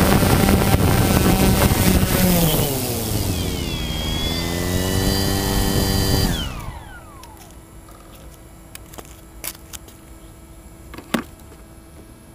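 Quadcopter drone's electric motors whining, dropping in pitch as it settles onto the roof, then spinning down and stopping about six seconds in. A few faint ticks and one sharper click follow.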